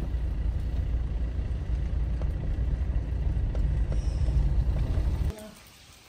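Steady low rumble of a car on the move. It cuts off suddenly near the end.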